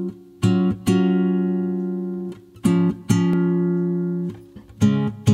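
Background music of plucked guitar chords, struck in pairs about every two seconds and each left to ring out and fade.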